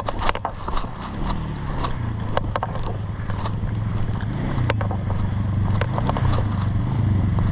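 Footsteps on the forest floor, with a motorbike engine running under them and growing steadily louder as it approaches.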